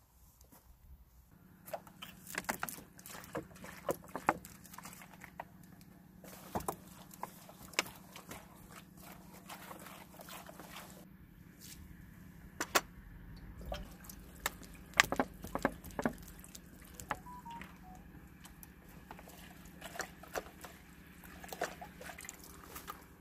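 Water splashing and dripping as freshly picked plant shoots are washed by hand in a metal mess tin, with irregular sharp clinks and splashes. A steady low hum runs underneath.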